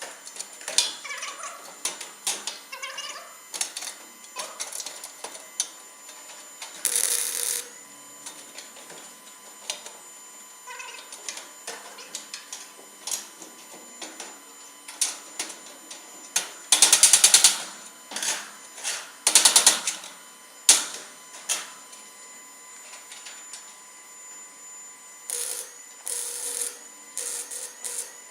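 Metal repair work on a steel grain-bin floor: irregular clanks, taps and knocks, with a few short, loud hissing bursts.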